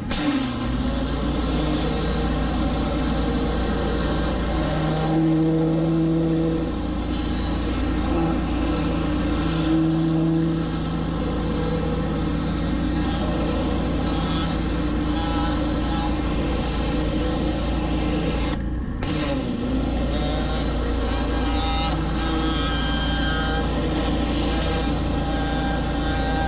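Gas-engine pressure washer running steadily under load, a constant engine drone with spray noise over it.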